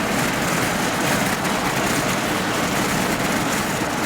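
Steady road and engine noise heard inside a car's cabin.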